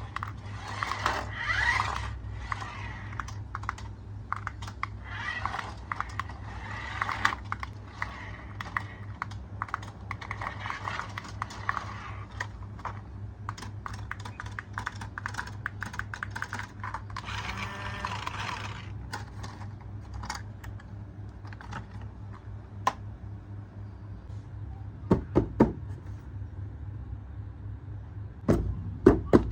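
Many small, quick clicks and rattles of hard plastic being handled, over a low steady hum. There is a short rustling noise a little past the middle and a few louder knocks near the end.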